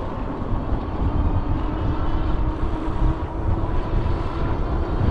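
Electric bike in motion: a steady low rumble of wind and tyres, with a faint steady whine running underneath.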